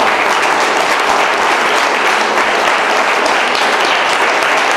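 An audience of about a hundred people applauding, a dense and steady clapping.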